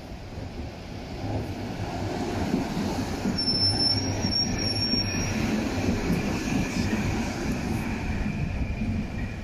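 Two-car Konstal 105Na tram passing close by, its rumbling running noise building to a peak and then easing. A high, steady wheel squeal sounds for about two seconds near the middle, followed by a fainter whine.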